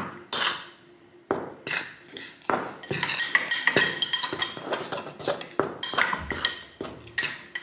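A spoon stirring flour and salt in a mixing bowl, clinking and scraping against the bowl in repeated irregular strokes, several of them ringing briefly.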